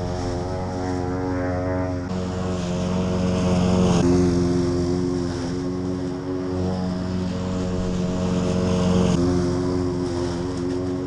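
A tractor engine running steadily with a droning note that shifts abruptly a few times.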